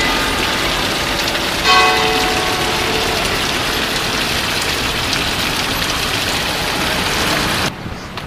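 Church bell in the Santa Maria Maggiore bell tower ringing: a clear strike about 1.7 s in that rings on and fades, over a steady wash of noise. The sound drops off abruptly near the end.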